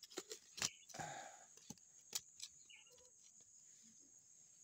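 A few light clicks and knocks of plastic bottle caps and containers being handled and opened, with a short scrape about a second in. A faint bird chirp comes around the middle, over a steady faint high-pitched hiss.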